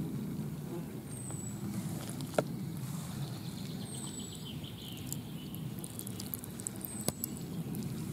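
A small metal tea strainer scooping in a shallow muddy puddle and being handled against a plastic tub, with two sharp knocks, the first about two seconds in and the louder. Under it a low steady rumble, and a faint high falling chirp that repeats every few seconds.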